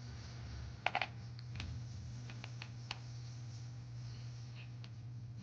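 Scattered light clicks and taps of RC truck wheels and parts being handled, the loudest double click about a second in, over a faint steady low hum.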